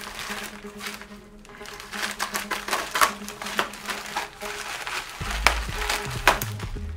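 Plastic mailer bag crinkling and rustling as it is handled and cut open with scissors, with sharp clicks from the handling and snipping. Background music with a bass line comes in about five seconds in.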